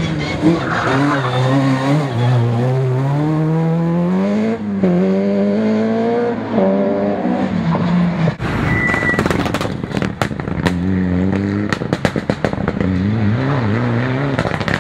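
Rally car engines at high revs, pitch climbing and dropping through quick gear changes as the cars pass. From about the middle comes a run of sharp cracks, exhaust pops and bangs, before engine revving returns near the end.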